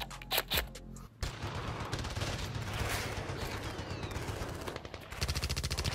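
DeWalt XR cordless drill running from about a second in, spinning a plastic soda bottle glued to its chuck, with a fast rattle that turns steadier and more even near the end.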